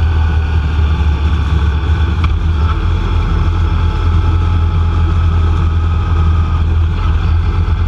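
Vehicle engine and tyres droning steadily at cruising speed on the open road: a constant low hum with a faint steady whine above it.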